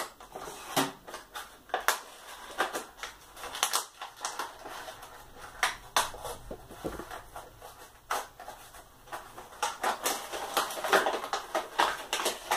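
Die-cast toy car's plastic blister pack and cardboard card being pried open by hand: a run of irregular crackles, crinkles and clicks, busiest near the end.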